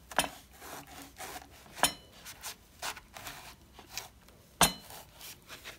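A kitchen knife cutting into a whole guava on a wooden cutting board: a run of short rasping cuts through the firm skin and flesh, with three louder sharp clicks.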